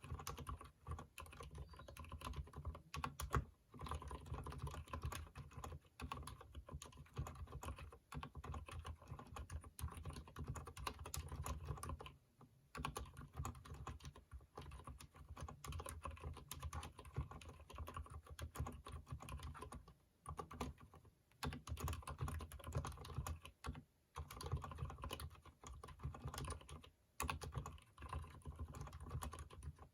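Continuous typing on a Durgod mechanical keyboard with freshly lubed Cherry MX Silent Red switches: a dense, quick run of keystrokes, broken by a few brief pauses.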